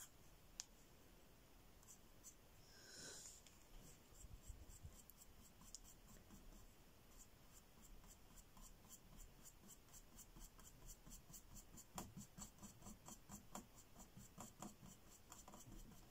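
Faint, short scratchy strokes of a paintbrush laying acrylic paint on a painting panel, several a second, coming thicker from about six seconds in.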